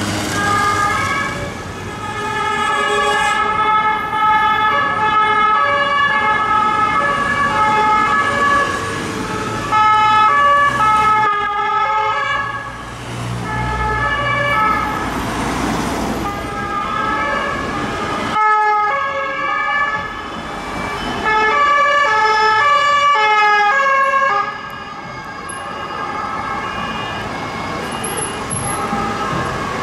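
Police nationale two-tone sirens of several vans in convoy, each alternating between a high and a low note, overlapping out of step, over passing traffic. The sound cuts off sharply and starts again about eighteen seconds in.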